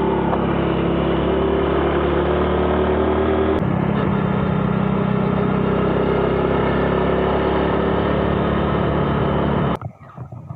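Small motorcycle's engine running steadily while being ridden at cruising speed, its note changing abruptly once about three and a half seconds in. The engine sound cuts off suddenly near the end.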